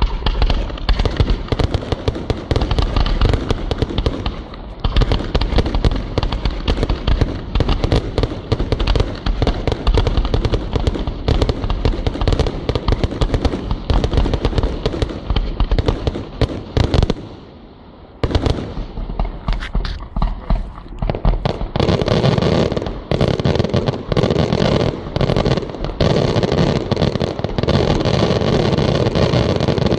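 Maltese feast fireworks: a dense, continuous barrage of loud cracks and bangs, with a short lull a little past halfway before the rapid firing picks up again.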